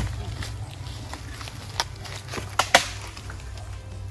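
A dead tree branch being broken up for firewood: a few sharp cracks of dry wood about two seconds in, then a loud snap as it is stamped on near the end, over background music.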